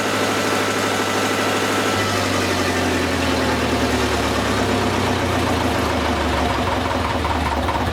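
Lister diesel generator engine running steadily under a load of about 9 to 10 kilowatts, loud with no exhaust muffler fitted. Its tone shifts slightly about two seconds in.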